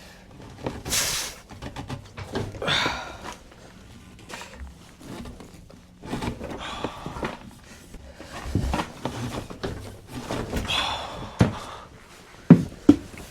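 Irregular scrapes and knocks with effortful breaths as a golf cart is lifted and a jack is worked under it. A few sharp clicks and knocks come near the end.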